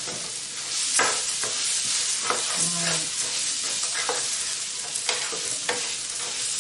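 Food sizzling in a frying pan while a utensil stirs it, knocking against the pan about once a second.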